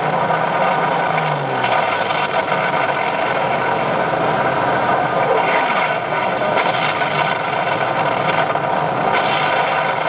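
Ship engine sound effect played through a model warship's onboard sound system: a steady mechanical running noise with a constant hum of tones.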